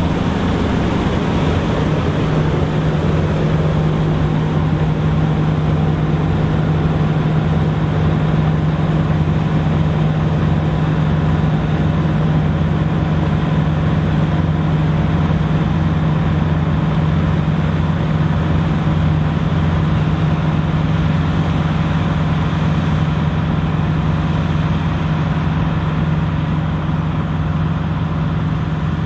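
Dronningborg D900 self-propelled combine running steadily while harvesting: a constant engine drone with a strong steady hum that never changes pace.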